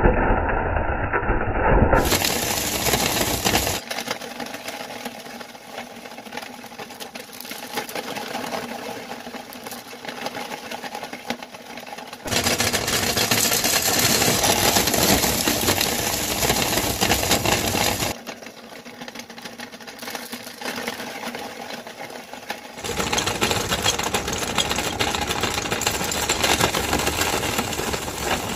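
Motor-driven cast-metal meat grinder running and grinding small round candies to powder: a continuous mechanical rattle with crunching. It shifts between louder and quieter stretches at several abrupt changes.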